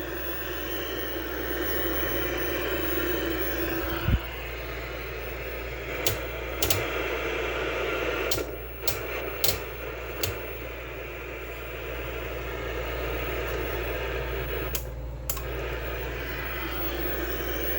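Tube television's speaker putting out steady static hiss with a low mains hum beneath it, broken by several sharp clicks and brief dropouts.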